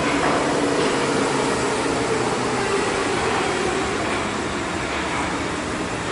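Munich U-Bahn train rolling along the platform in an underground station, its wheel and running noise steady and slowly fading.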